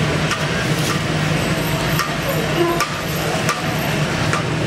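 Street-food stall ambience: a steady low hum under a general street wash, with several sharp clicks and knocks from the vendor's handling at the soup cauldron.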